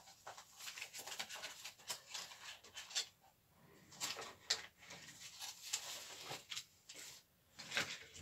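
Rustling and scattered small clicks of objects being handled close to the microphone, in short irregular bursts.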